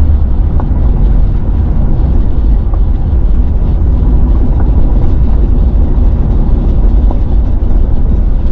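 Truck driving, with a steady low rumble of engine and road noise.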